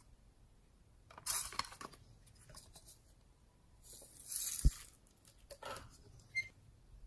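Slime being squeezed and worked by hand, making two short crackly, squishy stretches. The second ends in a sharp knock, and a few small clicks follow.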